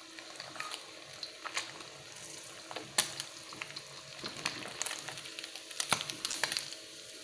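Fish frying in hot oil in a wok, a steady sizzle full of sharp crackles and pops, as a metal spatula stirs and turns the fish. The loudest pops come about three and six seconds in.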